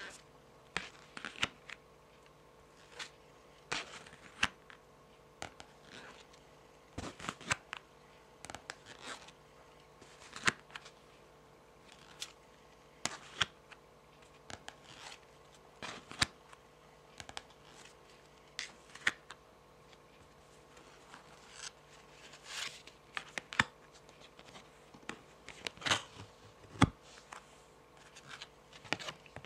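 Long fingernails tapping and scratching on a stack of tarot cards: irregular light taps and short scrapes, sometimes several in quick succession, sometimes a second or two apart.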